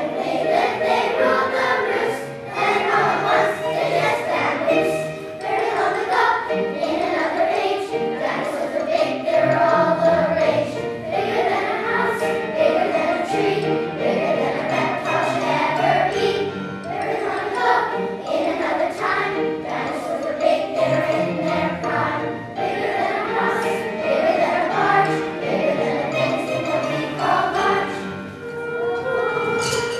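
Children's choir singing together over instrumental accompaniment with a steady beat.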